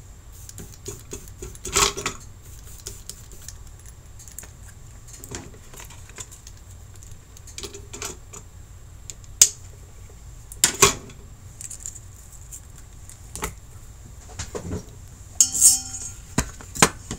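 Small metal tools and parts being handled and set down on a workbench: scattered clinks and clatters, with a busier run of them near the end. A faint steady high tone lies underneath.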